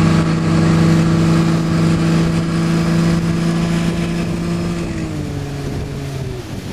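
Motorboat engine running steadily at speed, then throttled back about five seconds in, its note dropping as the boat slows, over the rush of water against the hull.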